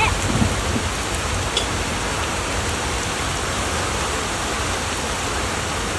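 Steady downpour of rain hissing evenly onto grass and a muddy, puddled path.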